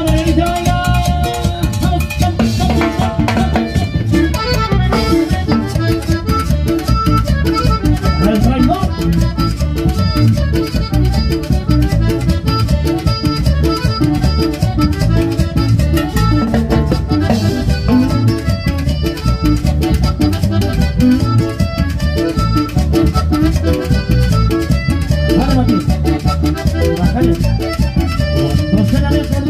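Live cumbia band playing an instrumental passage: piano accordion carrying the melody over timbales, electric bass and acoustic guitar, with a steady driving beat.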